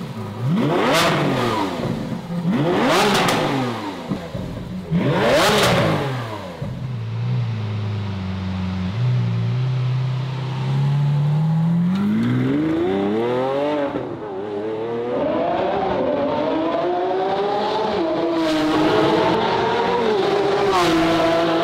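Lamborghini Aventador SVJ's V12 through a titanium valvetronic catback exhaust, blipped sharply three times. It then settles into a low drone that climbs in pitch as the car accelerates, dropping back at each gear change.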